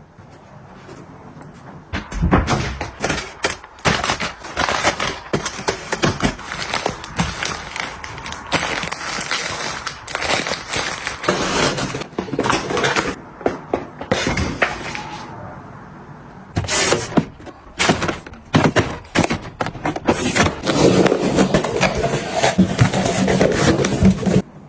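Groceries and containers being handled and set down during fridge restocking: a busy, irregular run of clicks, taps and knocks.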